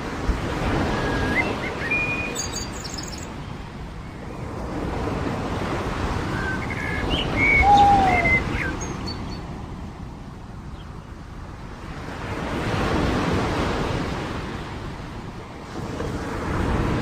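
Waves washing onto a beach, the surf swelling and fading about four times, with small birds chirping over it, most of all about two seconds in and again around seven to eight seconds in.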